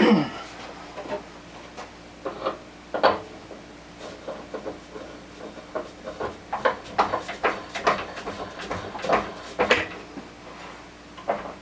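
Irregular clanks, clicks and knocks of metal lathe parts and tools being handled and set in place at a wood lathe, with no motor running. The loudest knock comes at the very start.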